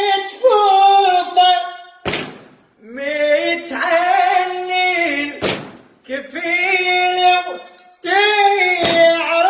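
A single unaccompanied voice chanting an Iraqi Arabic lament in long, drawn-out, wavering notes. The phrases last about two seconds each, with a short sharp noise in the brief gap between them.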